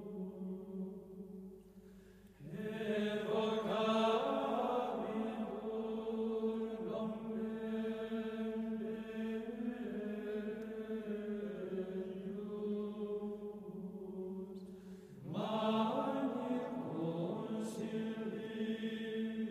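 Chanted vocal music over a sustained drone. The phrase fades out in the first two seconds, a new one swells in a little after two seconds in, and another begins about fifteen seconds in.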